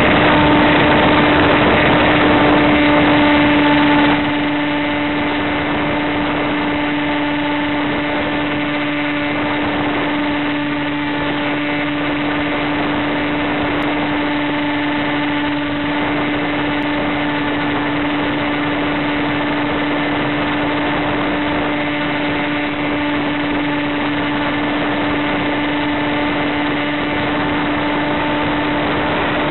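Multiplex Easy Star's electric motor and pusher propeller running steadily under power: a constant hum at one pitch over a rush of air. It gets slightly quieter about four seconds in.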